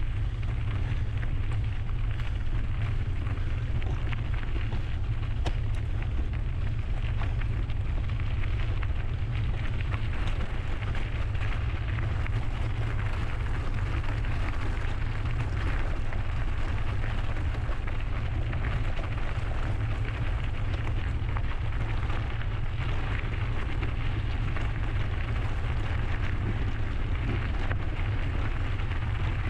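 Steady wind rumble on a GoPro 11's microphone while riding a mountain bike, with an even crackling hiss of the bike's tyres rolling over the trail.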